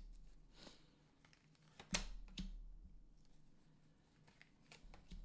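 Tarot cards being handled and laid out: a soft slide about half a second in, then a sharp card tap about two seconds in, a second tap soon after, and a few faint ticks near the end.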